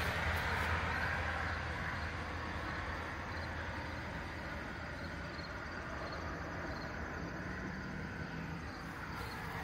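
A passing vehicle fading away over the first few seconds, leaving a steady low rumble of background noise.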